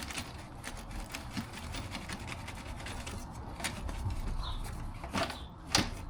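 Tools being handled and packed into a small toolbox: irregular small clicks, rattles and rustling, with two sharper knocks about five seconds in and just before the end.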